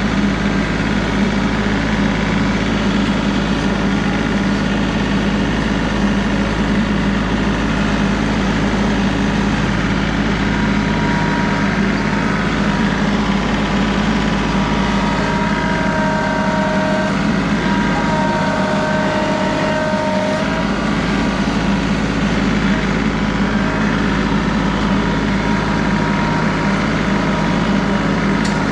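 John Deere 3038E compact tractor's three-cylinder diesel engine running steadily. A higher whine comes in twice around the middle.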